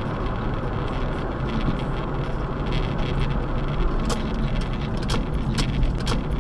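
Steady road noise of a car driving at freeway speed, heard from inside the cabin through a dashcam microphone: a low tyre and engine rumble with a few sharp clicks in the second half.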